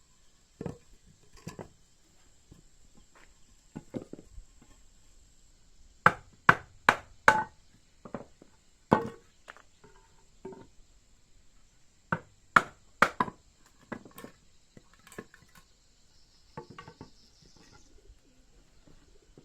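Sharp knocks struck in quick runs: four in about a second and a half near the middle, three more a few seconds later, with lighter scattered knocks between.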